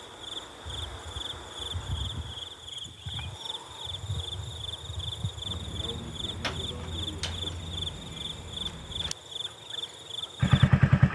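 Crickets chirping steadily in an even, pulsing rhythm, with a few light clicks. Near the end the chirping cuts off and a motorcycle engine starts running loudly with a fast, even beat.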